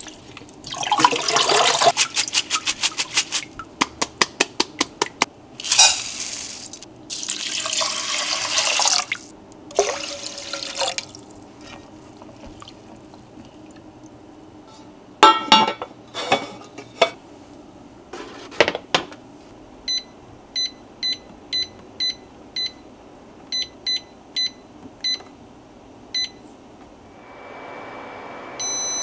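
Brown rice being rinsed under a running tap in a plastic colander, water splashing and draining, followed by a few knocks as the cast-iron pot is handled. Then a run of short electronic beeps from button presses on the Vermicular rice pot's induction heater control panel, with a steady hum setting in near the end and a longer beep.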